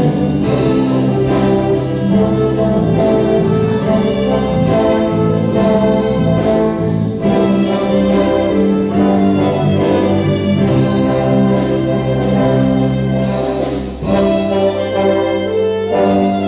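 Orchestra playing held chords, with a brief drop in loudness about fourteen seconds in before the music carries on.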